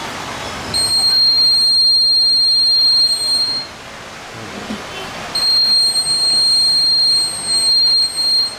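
Homemade door-alarm buzzer sounding a steady high-pitched tone twice, each about three seconds long, the alarm going off as the door is opened.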